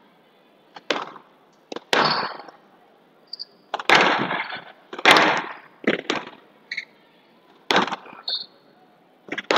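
A squash rally: the ball cracks off rackets and the glass and front walls about ten times at an irregular pace, starting just under a second in, each crack ringing briefly in the hall. A few short high squeaks of court shoes come between the shots.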